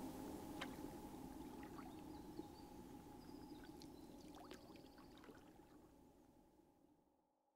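Faint dripping and trickling water from canoe paddle strokes, with a few small splashes. The sound fades away to silence near the end.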